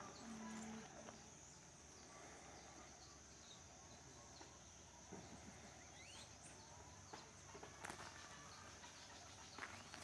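Near silence: faint rural outdoor ambience with a steady high-pitched insect hum and a few faint bird chirps.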